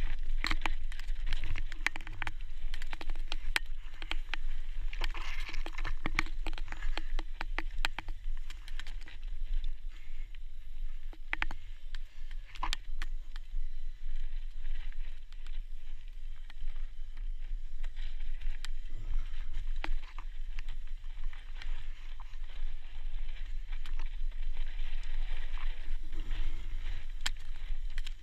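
Mountain bike descending a loose, dry, rocky trail: tyres crunching over dirt and stones, and the bike rattling with frequent sharp clicks and knocks over a steady low rumble.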